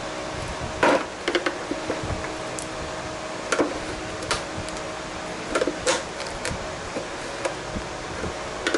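Baked headlight assembly being pried apart by hand, the lens pulling away from the housing: a series of sharp cracks and clicks every second or so as the heat-softened glue lets go, over a steady hum.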